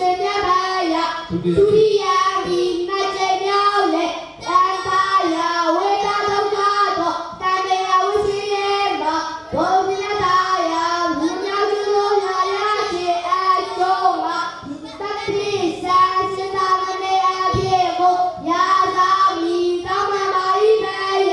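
A boy novice monk's voice chanting a Buddhist devotional recitation into a microphone, in a sing-song melody of long held notes, phrase after phrase with short breaks for breath.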